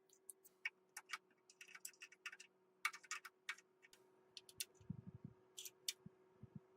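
Faint, irregular clicks and light metallic ticks, with a few soft low knocks about five seconds in, over a faint steady hum.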